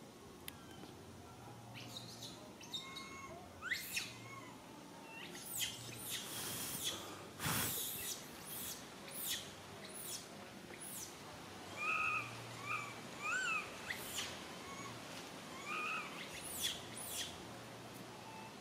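Young macaque crying: a series of short, shrill squeals, one after another for several seconds. Softer, shorter chirping calls follow in the second half.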